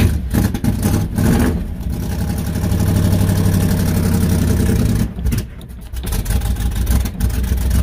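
1983 Chevy pickup engine catching on a cold start after sitting a month, at first rough and uneven, then running at a fast cold idle. It sags briefly about five seconds in and picks up again, as a cold-blooded engine does before it warms.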